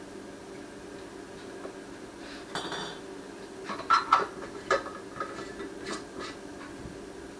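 Metal pots and utensils clinking and knocking at a kitchen sink, a few separate knocks. One rings out briefly about two and a half seconds in, and the loudest come around four seconds in. A steady low hum runs underneath.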